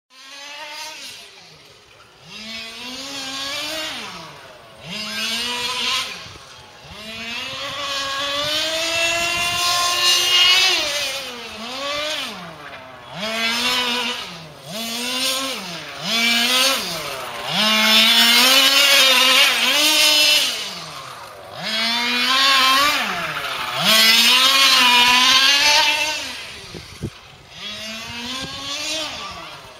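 Hobby Center ULTRA tuned two-stroke petrol engine of a 1/5-scale RC car, revved hard and then let off again and again as the car laps the track. Its pitch climbs for a second or two and then drops sharply, about a dozen times, and the sound grows louder and fainter as the car comes near and moves away.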